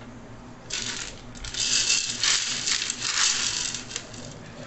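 Dry beans rattling against the inside of an aluminium pressure cooker as a hand rakes and stirs through them to sort them. The rattle starts about a second in and is densest in the middle.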